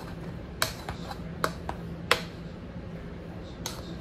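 A kitchen utensil knocking and clinking against a pot while mashed potato is being made: about six sharp knocks at irregular spacing, over a steady low hum.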